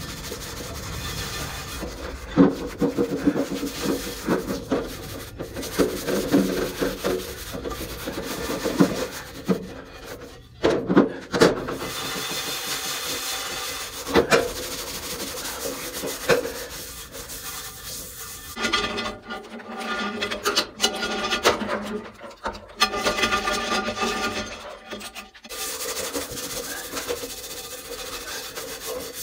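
Scrubbing pad rasping back and forth over the rusty surface of a Lodge 15¼-inch cast iron fry pan in soapy water, with a knock now and then as the pan shifts in the stainless steel sink.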